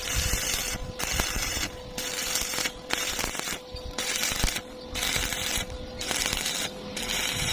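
Electric arc welding on iron plate: the arc crackles and sizzles in pulses, cutting out briefly about once a second.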